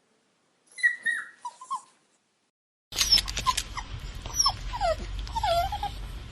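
A puppy whimpers briefly in a few short whines. About three seconds in, a new recording cuts in: a bulldog crying in a string of short whines sliding up and down in pitch, over a steady background hiss.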